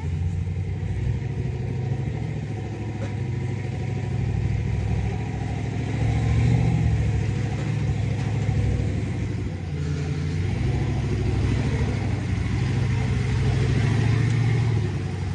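Chevy squarebody truck's engine running under load while crawling, its note swelling and easing with the throttle, loudest about six seconds in and again near the end.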